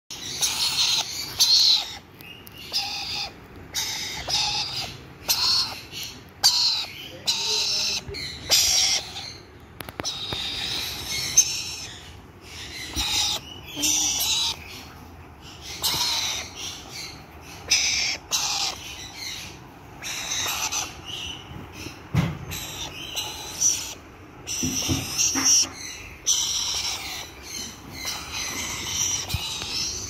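Young black-capped lory chicks giving short, raspy, hissy calls, repeated about once a second in an uneven series.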